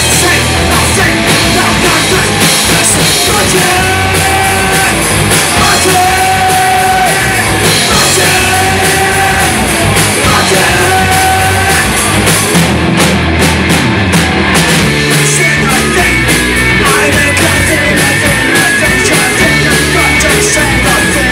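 Punk rock band playing live and loud, with shouted vocals over the band.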